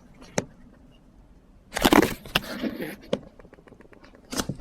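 Plastic packaging being handled and torn open, with a loud crinkling rustle lasting about a second from just under two seconds in, and a few sharp clicks and taps before and after.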